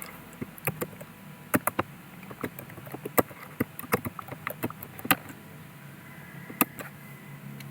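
Computer keyboard keys clicking at an irregular pace, some in quick runs of two or three, as a name is typed in, over a faint steady hum.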